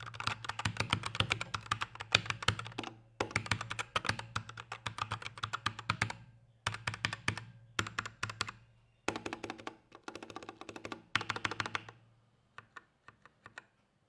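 Typing on a Portronics Hydra 10 60% mechanical keyboard with red (linear) switches: fast runs of keystrokes in bursts of a few seconds with short breaks, slowing to a few single key presses near the end.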